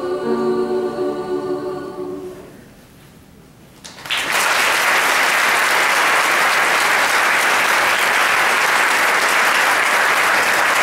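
A mixed high school choir holds its final sung chord, which fades out about two seconds in. After a short hush, audience applause breaks out suddenly about four seconds in and keeps going steadily.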